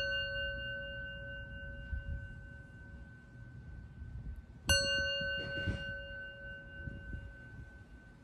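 Singing bowl struck with a wooden mallet: the ring of a stroke made just before fades slowly, then a second strike about halfway through rings out with several steady overtones that decay gradually.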